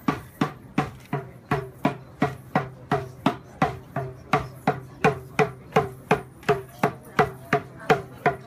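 A drum beaten in a steady beat of about two and a half strokes a second, each stroke with a short ring that drops in pitch, accompanying a dance.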